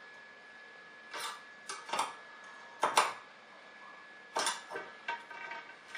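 A 10 mm spanner clinking on the nuts as the eccentric spacers of a V-slot gantry plate are turned to take the play out of its wheels against the rail. It makes a series of short metallic clicks and knocks, the loudest about three seconds in.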